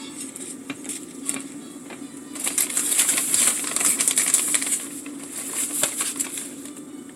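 Shredded cheese being handled and sprinkled into hard taco shells: rapid rustling and crackling that swells about two and a half seconds in and fades near the end.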